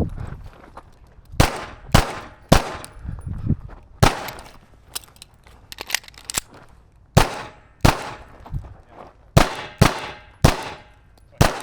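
Pistol fired about ten times in uneven strings: pairs and triplets roughly half a second apart, with longer pauses between strings.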